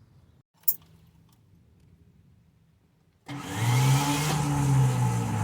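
A short click, then about three seconds in a starter motor on a Mopar 360 small-block whirs with a steady drone and a scraping hiss, and the engine does not catch. The standard starter is rubbing on the flex plate, which the adapter plate for the unbalanced converter sets too close.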